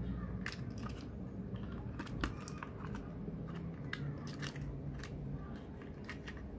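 Irregular small clicks and scrapes of a precision screwdriver and hands working against the plastic shell and metal frame of a 2.5-inch hard drive, prying it out of a glued external-drive casing, with a low steady hum underneath.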